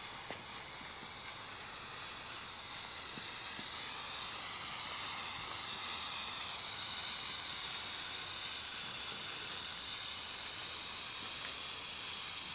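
Pyrotechnic torch (hand flare) burning with a steady hiss, its high rushing tone wavering slightly.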